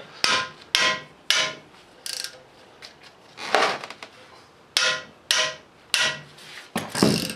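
Hammer blows on a GearWrench ratchet, about ten sharp metallic strikes with a short ring, working the stuck plugs out of a Cummins 24-valve cylinder head.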